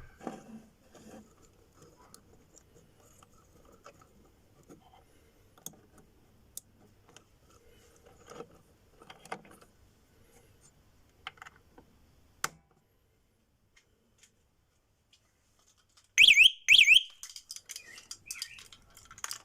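Quiet clicking and rattling of handling, then near the end two loud, quick warbling electronic chirps from the E-Odin 2.0's alarm, the annoying sound it makes after the key is removed.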